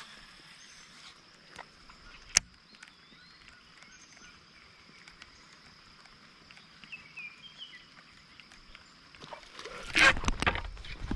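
Quiet lakeside ambience with a faint steady high tone, a single sharp click about two seconds in and a few brief bird chirps. About ten seconds in, a loud burst of rough, rustling noise starts abruptly.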